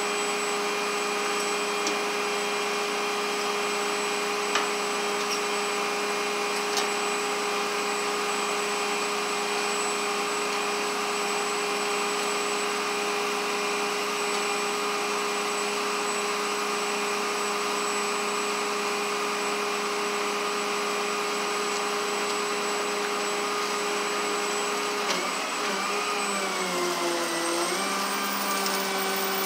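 Steady machine drone with a whine on top, like a motor or fan running continuously. About 25 seconds in, its pitch dips and then settles a little lower.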